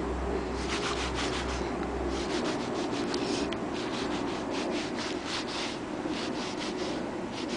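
Boot soles scuffing and scraping on gritty concrete in quick, uneven strokes, several a second, as the feet shuffle about.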